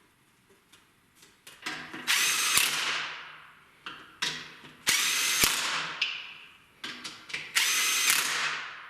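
Cordless impact wrench run down onto cylinder head bolts in three short bursts, one bolt after another. Each burst starts sharply and then winds down as the bolt snugs up tight.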